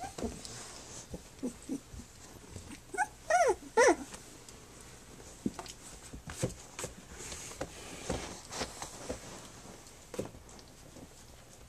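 Three-week-old Standard Schnauzer puppies whimpering and yelping while they play, with two loud high yelps close together about three and a half seconds in, amid small knocks of scrambling paws.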